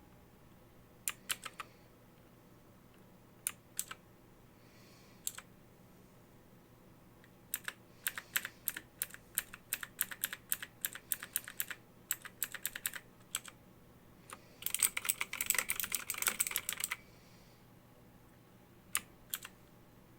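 Keys of a Motospeed K87S mechanical keyboard being pressed: a few single clicks, then a run of steady typing from about 7 seconds in, then a fast, dense flurry of keystrokes, and two last presses near the end.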